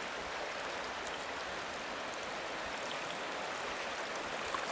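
A fast-flowing river rushing past with a steady, even sound of moving water.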